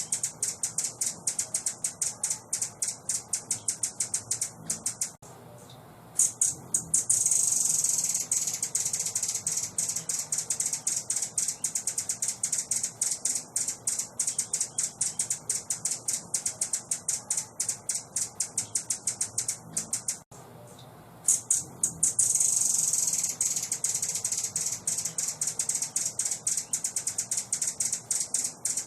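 A small songbird's high-pitched song: a fast stream of sharp chip notes that runs into a rapid continuous trill, broken by a short pause twice. The same phrase comes round again about every 15 seconds, as in a looped birdsong training (masteran) recording.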